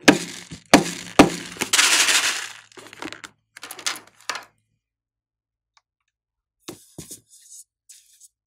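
Filled rubber balloon handled in the hands: a few sharp clicks and thuds as it is gripped, then a stretch of squeaky rubbing of rubber against fingers, trailing off. After a quiet pause, a few light clicks near the end.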